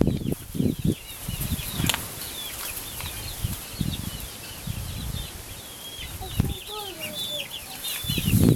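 Chickens: many chicks peeping in short high chirps, with a few lower falling hen calls about six to seven seconds in, over irregular low thuds and rustling.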